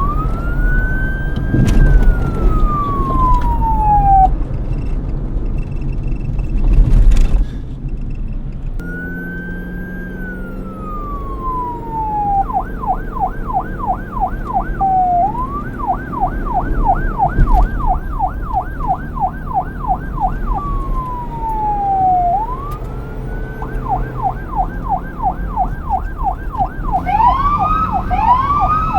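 Police car siren switching between a slow wail that rises and falls over a few seconds and a fast yelp of several sweeps a second, over a low traffic rumble. A loud burst of noise cuts through about seven seconds in.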